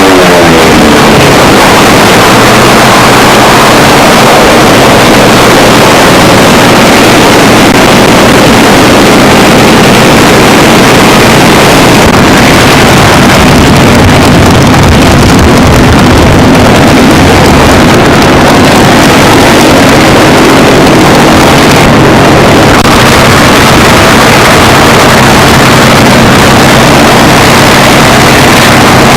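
Aircraft engine running steadily at close range, loud enough to overload the recording; its pitch falls in the first half-second, then holds.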